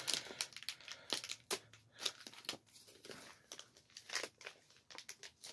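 Plastic packaging crinkling and rustling in scattered short crackles as an item is pushed out of a tight-fitting bag by hand.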